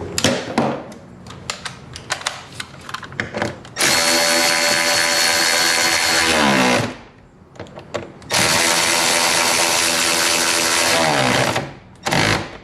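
Power drill driving screws in two runs of about three seconds, each one winding down as the trigger is released, after a few light clicks and knocks of tool handling.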